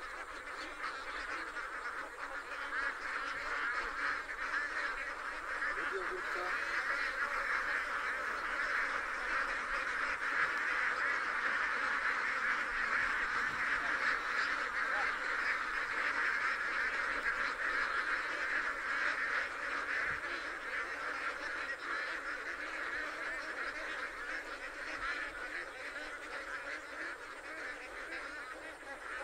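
A large flock of domestic ducks quacking all at once, a dense chorus of many overlapping calls that swells louder through the middle and eases off near the end.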